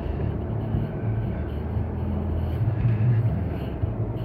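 A car's engine and road noise heard from inside the cabin while it is driven: a steady low hum.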